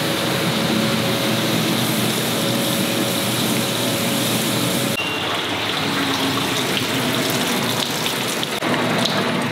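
SE-A stainless hood-type commercial dishwasher running its hot-water wash: water spraying inside the cabinet as a steady rush, with a faint pump hum. About five seconds in, the sound changes abruptly and grows thinner.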